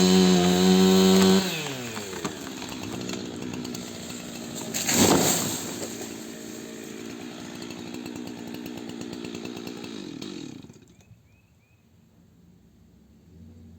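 Chainsaw running at full revs, then dropping to a lower, quieter speed about a second and a half in. A loud burst of noise comes about five seconds in. The saw cuts off near the end, leaving a few faint bird chirps.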